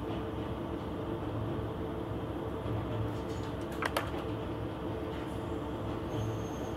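Interior sound of a KiHa 120 diesel railcar: a steady engine drone with a low hum that swells and fades about every second and a half, and a sharp click about four seconds in.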